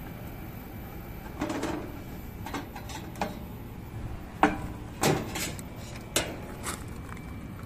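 Sheet-metal access panel of a rooftop package air-conditioning unit being unscrewed and pulled off: a series of sharp metal knocks and clanks, loudest about halfway through, over a steady low background rumble.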